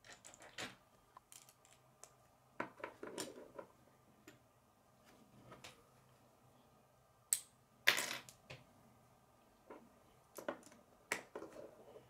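Plastic K'nex pieces clicking and snapping as gears are pushed onto a rod and handled, with pieces knocking on a wooden tabletop. Two sharper snaps come a little after halfway.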